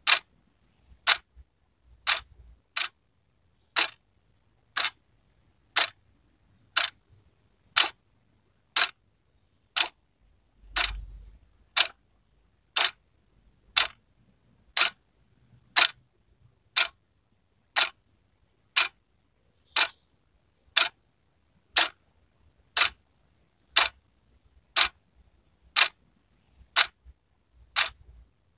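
Wall clock ticking steadily, one sharp tick about every second.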